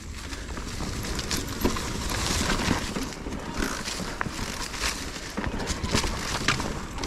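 Mountain bike being ridden over rough trail: steady tyre noise with a constant irregular clatter of knocks and clicks as the bike rattles over stones and roots.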